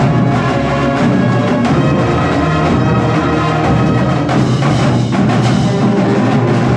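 High school band playing a tune, with drums and other percussion keeping a steady beat under sustained instrument notes.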